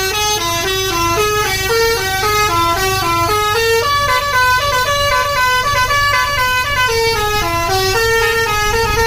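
Bus basuri horn, the Indonesian multi-note 'telolet' musical horn, playing a fast tune of short stepping notes, about four a second. A low rumble runs underneath.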